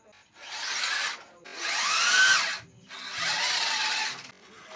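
Small electric motor whirring in three short bursts, each one spinning up in a rising whine and winding back down.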